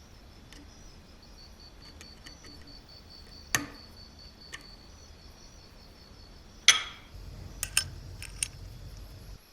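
Sharp clicks and taps of small hard objects: two loud ones a few seconds apart, then a quick run of lighter clicks near the end. Under them runs a faint, high, pulsing chirp.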